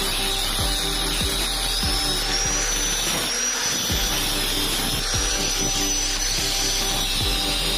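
A drill running steadily, its high whine slowly rising and falling, with background music and a regular beat.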